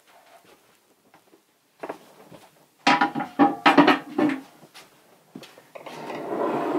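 Hands handling garlic cloves and a large glass jar: a run of light clinks and knocks, some briefly ringing, then a soft rustling clatter near the end as the cloves go into the jar.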